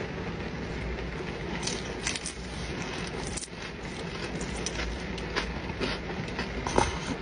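Steady rain noise heard from inside a parked car, with many short sharp clicks and crackles on top of it; the loudest click comes near the end.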